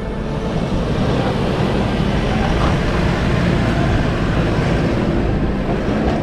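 Toyota GD-6 turbodiesel 4x4 engine running steadily, a dense low drone with no sharp changes in pitch or level.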